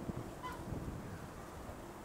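Low, steady rumble of an Airbus A340-300's four CFM56 turbofan engines as the airliner climbs away after takeoff.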